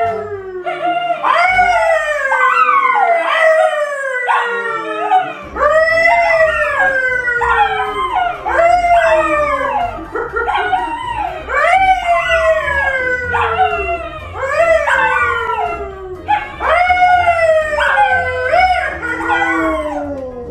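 A man and two dogs, a yellow Labrador and a brown poodle, howling together. Long howls that fall in pitch, overlapping and starting again every second or so.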